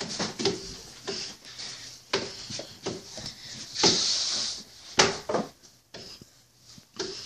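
Scuffling of a rough play-fight: irregular thumps, knocks and footfalls on a wooden floor and leather couch, with bursts of rustling from clothes, the loudest about four seconds in.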